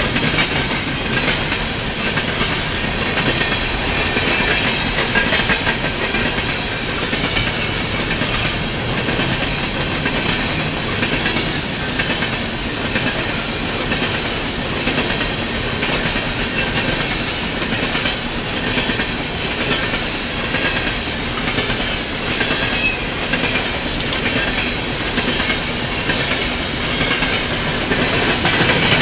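Coal hopper cars of a fast-moving freight train rolling past: a steady rumble with the wheels clicking over the rail joints in a repeating clickety-clack.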